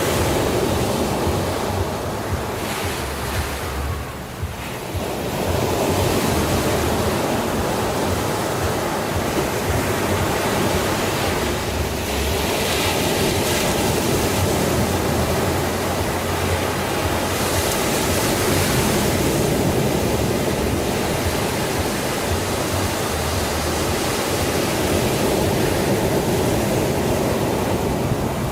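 Sea surf washing continuously, with a brief lull a few seconds in and hissing surges of breaking waves a little before halfway and again a few seconds later.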